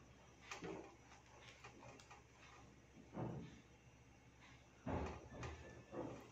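Red silicone spatula stirring thick, simmering strawberry jam in a non-stick pan: a handful of soft, short scrapes and knocks against the pan, the clearest about three and five seconds in.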